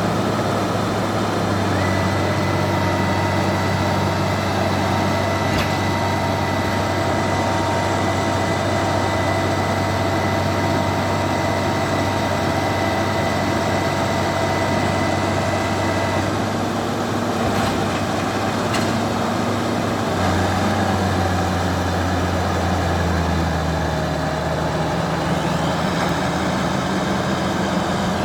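Bulldozer's diesel engine running steadily, its low note shifting a few times as the load changes. A faint high whine runs with it until just past halfway, and there are a couple of brief clanks soon after.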